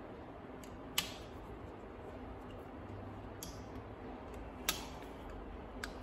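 Sharp metal clicks from a screwdriver working against a steel lathe chuck: a loud click about a second in and another a little before five seconds, with a few fainter ticks between, over a low steady room hum.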